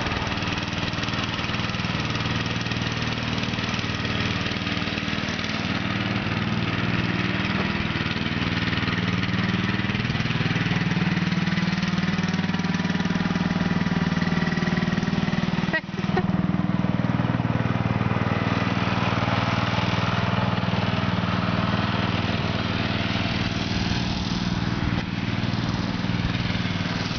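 Small engine of a homemade dune buggy built from lawnmower parts, running continuously as it drives around. Its pitch rises and falls with the throttle and its distance, and the sound breaks off briefly about 16 seconds in.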